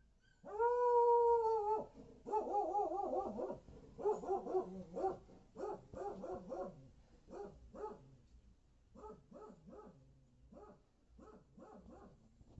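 An animal calling: one long, steady call about half a second in, then a string of short calls that waver up and down in pitch, coming in quick clusters and growing fainter toward the end.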